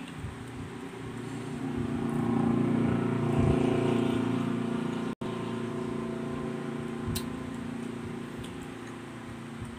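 Engine of a motor vehicle passing by, swelling over a couple of seconds and then slowly fading away. The sound cuts out for an instant about five seconds in.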